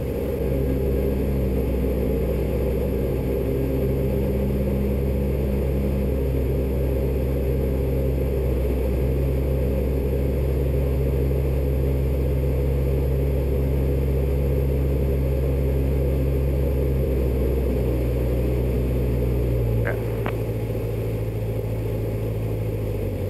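Robin DR400 light aircraft's four-cylinder piston engine and propeller droning steadily, heard inside the cockpit on final approach. About 20 seconds in, the pitch steps down and the drone gets a little quieter as power is pulled back for landing.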